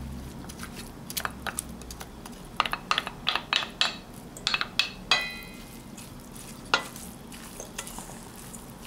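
Wooden spatula scraping and tapping minced water chestnut out of a glass dish into a stainless steel bowl of ground pork, in irregular clicks and soft scrapes. One tap about five seconds in rings briefly.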